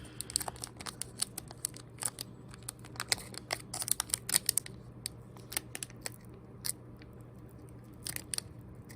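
Foil booster-pack wrapper crinkling and crackling in scattered sharp clicks as it is worked at by hand, a stubborn pack that won't tear open.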